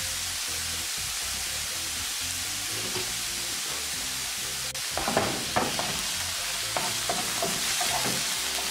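Mushrooms sizzling in olive oil in a hot frying pan over a high gas flame. About five seconds in, a wooden spoon starts stirring them, scraping across the pan in a run of strokes.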